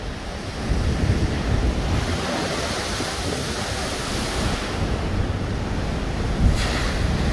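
Storm waves crashing against the seawall and bursting up over the promenade railing in a spray, under a constant rush of surf and strong wind buffeting the microphone. About six and a half seconds in a sudden louder hiss sets in.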